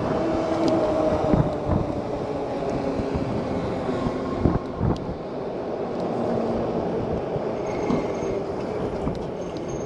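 Steady rumble of wind on the microphone and tyre noise while riding an electric bike along a road, with a faint steady hum underneath.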